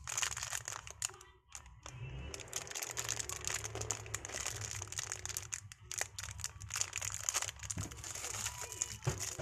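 A clear plastic bag full of small Lego pieces being handled and squeezed: the plastic crinkles while the loose bricks click and shift inside, with a short lull about a second and a half in.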